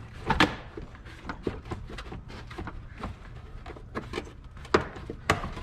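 Irregular clicks and knocks of hand tools and plastic and metal engine-bay parts being worked while a radiator hose and the air box are loosened, with sharper knocks about half a second in and near the end.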